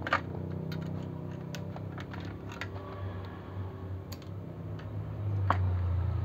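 Light clicks and taps as a car head unit's circuit board and sheet-metal chassis are handled during disassembly, with a sharper click at the start and another about five seconds in, over a low steady hum.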